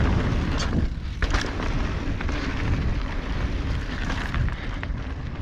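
Wind rumbling over an action camera's microphone and knobby tyres rolling over a dirt trail as a mountain bike runs downhill, with a few sharp knocks and rattles from the bike going over bumps.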